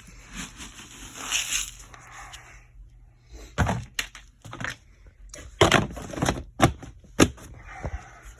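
Chicken feed being handled with a plastic bucket: a rustle of pellets, then a run of about seven sharp knocks and clunks of the bucket.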